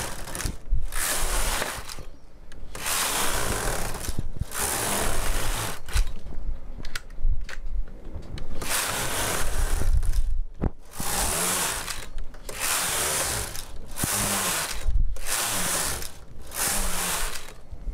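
Knitting machine carriage pushed back and forth across the metal needle bed, knitting rows of ribbing. Each pass is a rasping slide of about one to two seconds with a brief pause at each end, about ten passes in all.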